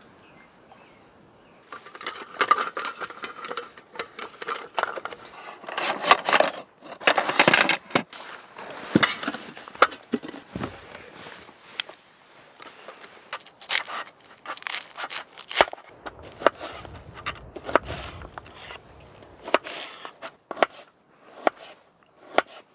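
Handling of camp cooking gear: irregular knocks and clatter as a cutting board and utensils are set on a folding aluminium table, then a knife cutting a red onion on the board in a series of sharp taps.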